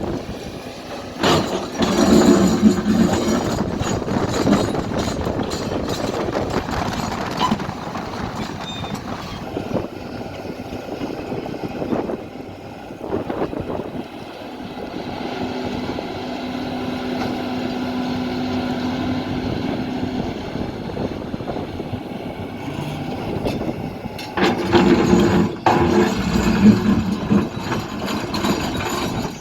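Diesel engine of heavy earthmoving machinery running continuously. It works harder twice, once near the start and once near the end, with a steadier hum in between.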